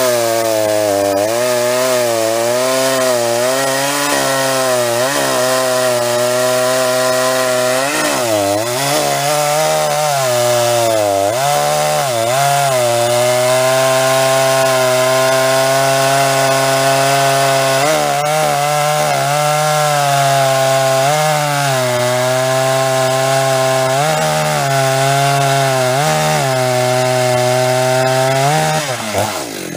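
Big-bore Jonsered chainsaw bucking through a large log under full load, its engine note sagging and recovering repeatedly as it is leaned into the cut. Near the end the revs climb sharply as the bar comes free of the wood.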